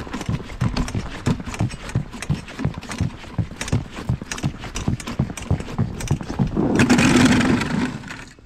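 Boots running on lake ice, footfalls at about three a second. About seven seconds in, a louder rushing hiss takes over briefly.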